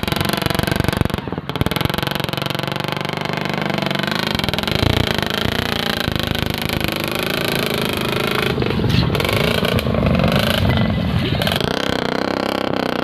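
Motorcycle engine with its silencer cut off and a long, roughly 15-foot pipe fitted onto the exhaust, running as the bike rides off. The note pulses low at first, then rises and falls with the throttle.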